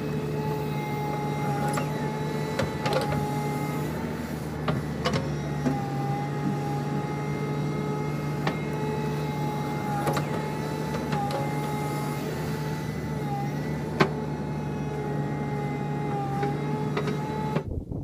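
JCB 3DX backhoe loader's diesel engine running steadily under load as the backhoe arm digs mud, with a steady whine that dips briefly in pitch every second or two. Sharp metallic knocks from the bucket and arm come now and then, the loudest about fourteen seconds in.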